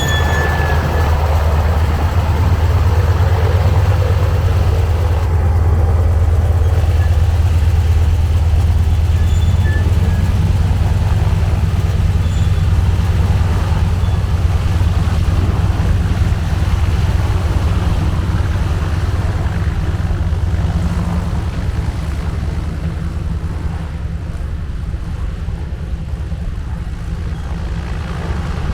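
Antonov An-2's nine-cylinder radial engine running steadily with a deep, even rumble, easing off a little in the last several seconds.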